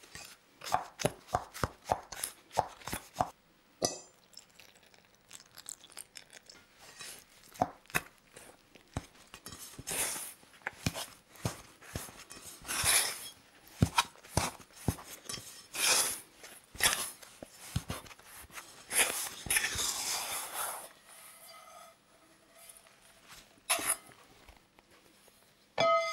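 A plastic bowl scraper mixing flour and dough in a stainless steel bowl: quick taps and clicks against the bowl at first, then longer scraping strokes as the sticky dough comes together. Near the end the metal bowl gives a short ring.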